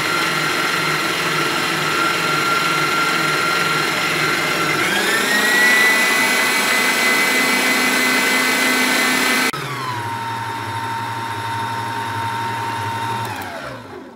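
Electric stand mixer motor running with a steady whine as its whisk beats cake batter. The pitch rises as it is sped up about five seconds in, drops suddenly to a lower speed a little after halfway, then winds down to a stop at the end.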